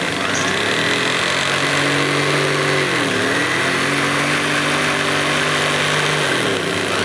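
Motor of a line-spooling machine running steadily, winding braided fishing line off a reel. Its pitch dips briefly about three seconds in and again near the end as the speed slackens and picks up.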